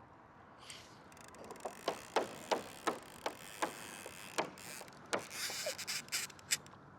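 Fishing reel's line clicker ticking in sharp single clicks, irregular and a few a second, as line is pulled off the free-spooling reel, with a brief hiss about two-thirds of the way through.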